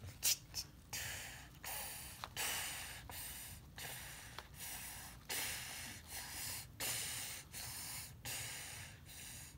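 A child's breathy puffs of air close to the microphone, repeating steadily about three times every two seconds. Two sharp clicks come just before the puffs begin.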